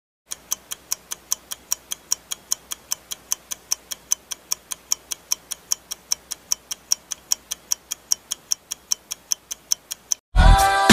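Clock-style ticking sound effect for a countdown timer, sharp even ticks at about five a second, then stopping abruptly. Near the end, loud pop music cuts in suddenly.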